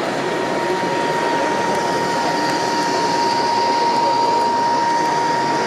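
Model railway train, a diesel locomotive hauling wagons, running along the layout track past the camera, with a steady high whine and a hiss that swells as it passes in the middle. Exhibition-hall crowd chatter underneath.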